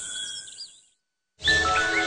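Rainforest insects buzzing with a few bird whistles fade out within the first second. After half a second of silence, music with sustained tones starts abruptly, with birds chirping in short rising calls over it.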